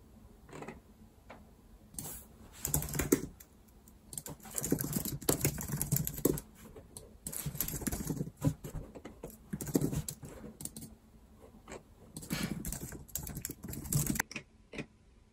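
Typing on a computer keyboard in short bursts of keystrokes with brief pauses between.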